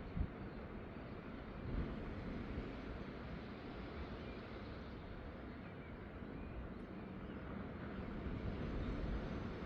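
Outdoor ambience at the coast: a steady rushing noise with a low rumble, and a short low bump about a quarter second in and another near two seconds in.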